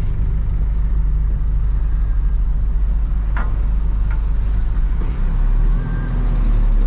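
Steady low drone of a Hino cab-over box truck's diesel engine running as the truck moves, with a short high squeak about three and a half seconds in.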